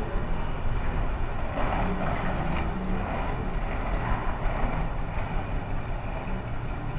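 Steady street background noise with a strong low rumble.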